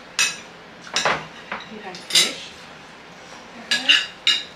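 Metal forks and spoons clinking and scraping against ceramic plates during a meal: a handful of short, sharp clinks, two coming close together near the end.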